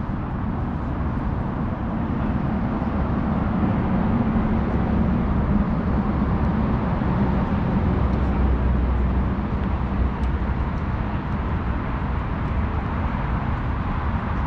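Steady outdoor noise of road traffic and wind on the microphone, a low rumble that grows a little louder in the middle.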